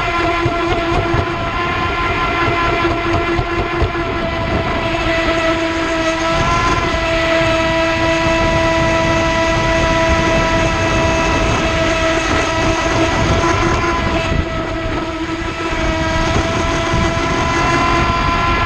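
AquaCraft MiniMono RC speed boat running under power, heard from a camera on its cowling: the electric motor and propeller make a steady whine over rough water rush. The whine dips in pitch briefly about six seconds in and again about fifteen seconds in, as the throttle eases and picks up.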